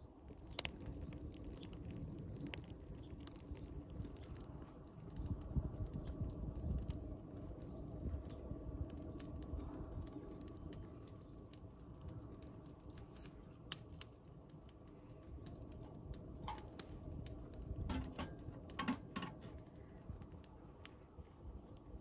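Small fire of dry twigs crackling, with frequent sharp snaps and pops scattered throughout over a low rumble, and a cluster of louder snaps toward the end.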